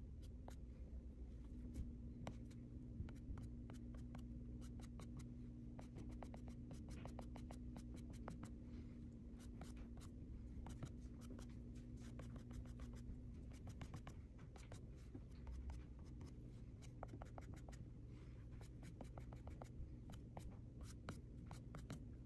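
Kneaded eraser rubbing over hot-press watercolor paper to lift pencil guidelines: a faint, dry scratching made of many quick small ticks, over a steady low hum.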